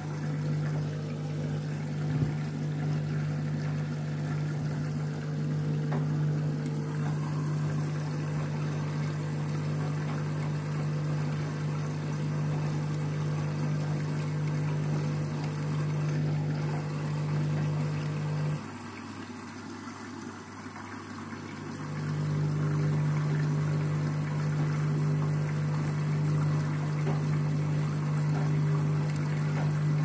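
Front-loading washing machine on a whites wash: the drum motor hums steadily as the wet laundry and water slosh and tumble inside. About two-thirds of the way through the drum stops and the hum drops away for a few seconds, then the drum starts turning again.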